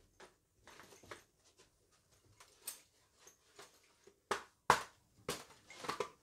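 Steel cuirass plates and their buckles clinking and knocking as the armour is worn and adjusted: a run of sharp clacks, the loudest from about four to six seconds in.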